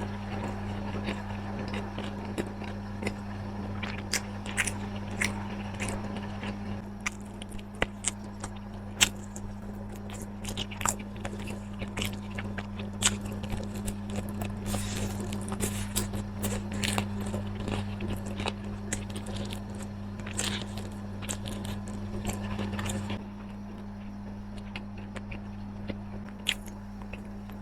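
Close-up eating sounds: irregular crunchy bites and chewing of food, over a steady low hum that drops a little near the end.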